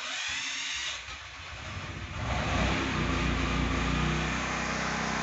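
Natural-gas generator starting: a sudden click, about two seconds of cranking, then the engine catches at about two seconds in and settles into a steady run.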